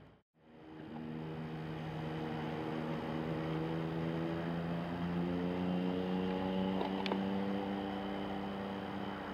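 An engine running steadily with a low hum, its pitch rising slowly for the first few seconds and then holding, with a couple of faint clicks about seven seconds in. The sound drops out for a moment right at the start.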